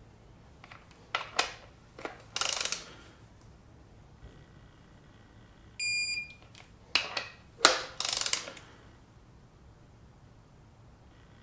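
Digital torque wrench ratcheting in short strokes on a connecting rod cap nut, with quick runs of clicks. About six seconds in it gives a short high beep, the signal that the set torque of 26 ft-lb is reached.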